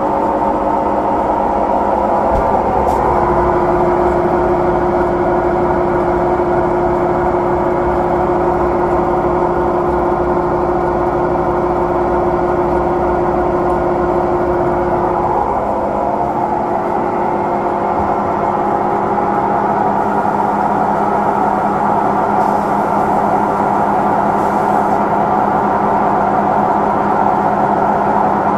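Samsung front-loading drum washing machine in its spin cycle, running loudly with a steady whine. The whine comes in about two seconds in and stops about halfway, where the running sound changes. It is an abnormal spin noise, the same fault that had the owner's first machine exchanged for a new one.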